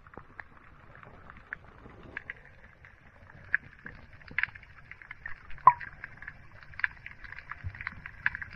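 Muffled underwater sound heard through a submerged camera, full of irregular crackling clicks over a low rumble of moving water, with one sharper click about two-thirds of the way through.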